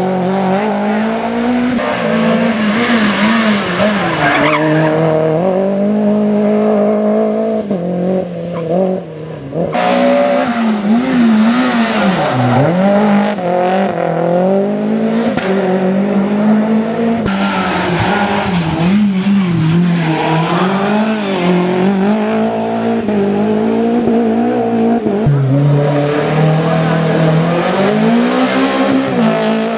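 Renault Clio Williams A7 rally cars' 2.0-litre four-cylinder engines revving hard on a stage, pitch climbing and dropping again and again with gear changes and lifts, with tyre noise. The sound cuts abruptly to a different car or pass a few times.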